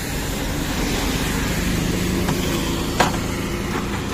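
Road vehicle noise, a steady rumble of traffic, with a single sharp click about three seconds in.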